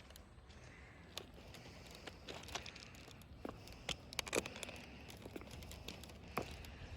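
Faint handling noises: scattered small clicks and light crinkling, busiest in the middle.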